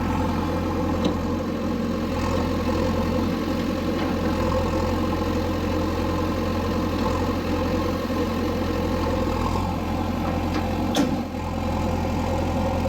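Backhoe loader's diesel engine running steadily, with a single short knock about eleven seconds in.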